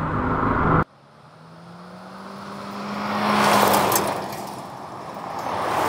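A vehicle towing a drift boat on a trailer passes by on a gravel road: a rush of tires on gravel and engine that builds, peaks about three and a half seconds in, then fades. Background music cuts off abruptly just before the pass begins.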